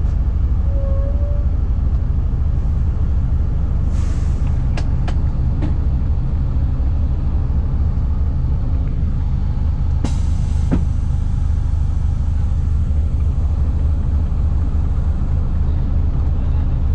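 Steady low engine drone heard during a vehicle ride, with two short hisses about four and ten seconds in.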